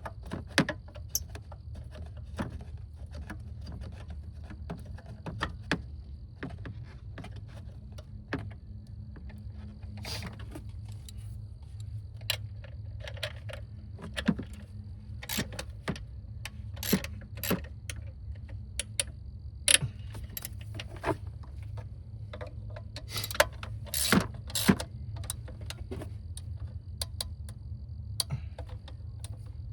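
Irregular metallic clicks, clinks and small knocks of hand tools and parts being handled in a car's engine bay, some louder ones clustered around the middle and near the end, over a steady low hum.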